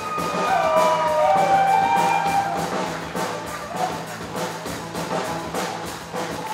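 Live rockabilly band playing an instrumental stretch: drums keep a quick, steady beat over a steady bass line, while held notes bend and slide down in pitch in the first couple of seconds.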